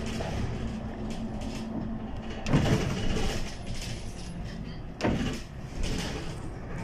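City bus engine running steadily, with two brief louder noises about two and a half seconds apart.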